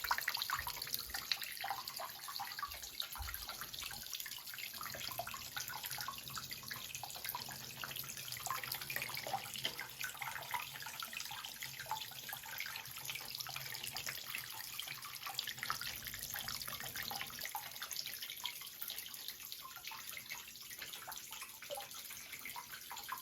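Water trickling and splashing steadily in a small homemade indoor water feature, with many small droplet splashes.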